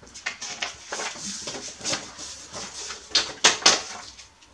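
Sheets of paper rustling and sliding as a written page is taken away and a fresh sheet laid down, with a few sharp, crisp rustles about three seconds in.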